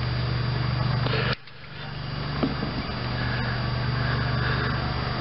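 A steady low mechanical hum. It cuts out abruptly about a second in and swells back up, with a faint click soon after.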